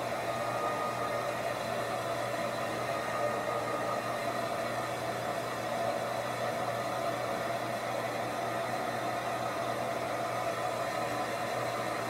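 Handheld hair dryer running steadily: a constant rush of air over a low motor hum.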